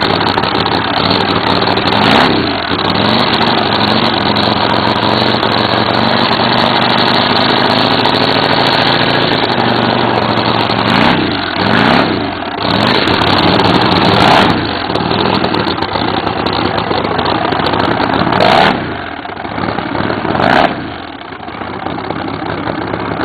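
Vehicle engines running steadily, with several vehicles passing close by, each pass rising to a peak and then dropping in pitch as it goes away.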